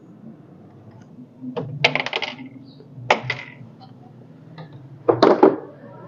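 Small hard parts clinking and rattling in three short clusters as the freezer door's metal hinge pin and spring are handled, with a faint steady low hum underneath.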